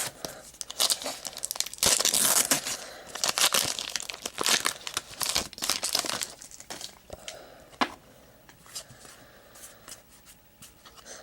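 A trading-card pack wrapper being torn open and crinkled, with dense crackling loudest from about two to six seconds in. After that come quieter scattered rustles and a sharp click.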